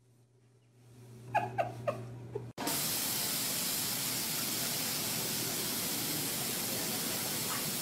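A few short, high squeaks over a faint low hum. Then, after an abrupt cut about two and a half seconds in, a loud steady hiss of spray-like noise.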